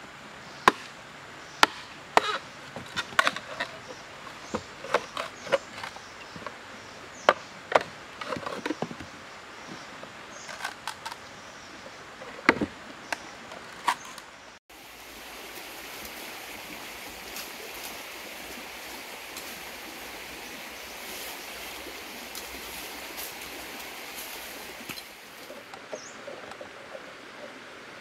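A knife chopping into and splitting a green bamboo pole: irregular sharp knocks and cracks for about fifteen seconds. It breaks off suddenly and gives way to a steady hiss for about ten seconds, with a few faint taps near the end.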